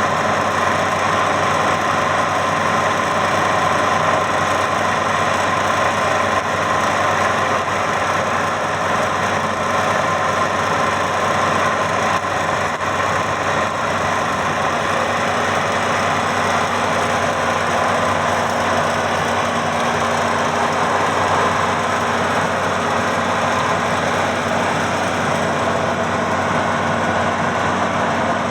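Maxxi Bimo 102 combine harvester running steadily, its engine noise carrying a constant high whine.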